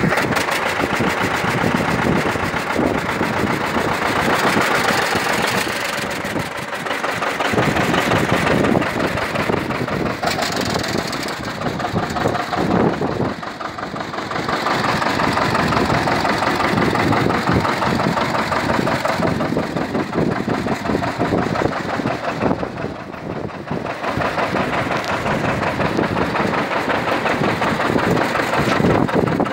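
John Deere 730 tractor's two-cylinder engine running at idle, with a steady pulsing beat.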